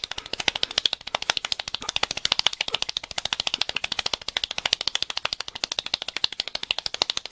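One person speed-clapping: a rapid, even train of hand claps at about fourteen a second.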